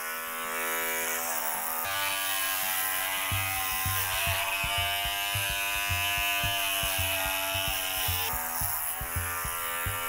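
Electric dog clippers with a 6 mm comb running steadily while trimming a dog's coat around the head. The hum changes pitch about two seconds in and again near the end. A soft low pulse beats about twice a second under it.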